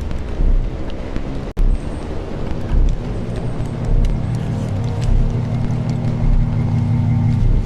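Eurorack modular synthesizers playing a dense, low noise drone: steady stacked tones with hiss and scattered clicks above. The sound cuts out for an instant about a second and a half in, and a held tone near the end stops shortly before it finishes.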